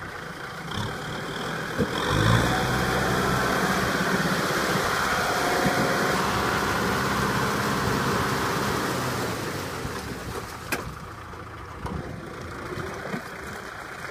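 Kubota tractor's diesel engine revving up about two seconds in and running hard for several seconds, then easing back down toward idle near the end.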